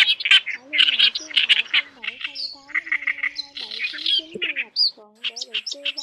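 Reed warbler song: fast, harsh, scratchy chattering and churring phrases, note after note with a brief pause about five seconds in.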